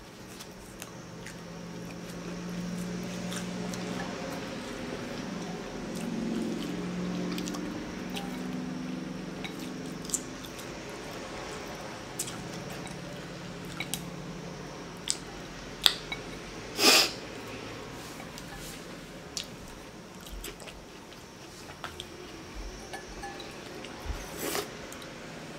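A person eating noodle soup: quiet chewing, with scattered sharp clicks of chopsticks and a soup spoon against a glass bowl and one brief louder noise about 17 seconds in. A low steady hum sits under the first half.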